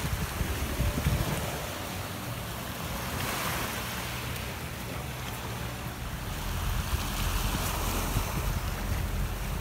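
Sea surf washing onto a beach, its hiss swelling twice, with wind rumbling on the microphone.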